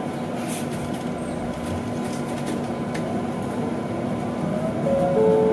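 Cabin noise of a BYD large electric bus on the move: a steady rush of road and running noise with a constant low hum. Near the end the sound gets a little louder and a few higher whining tones come in.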